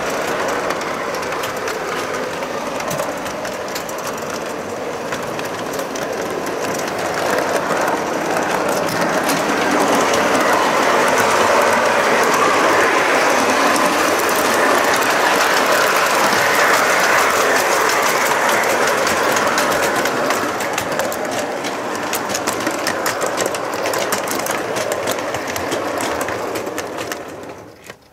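Model train running on metal track, heard close up from a flat wagon riding at the rear: a steady rattle of wheels and running gear with quick clicks, louder for a stretch in the middle, then stopping suddenly near the end.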